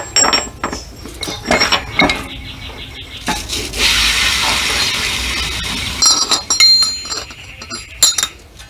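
Steel transmission gears and splined shafts of a Case 580SK gearbox clinking and knocking together as they are handled and fitted by hand, several clinks ringing on briefly. A steady hiss runs for a couple of seconds in the middle, and a burst of ringing clinks follows near the end.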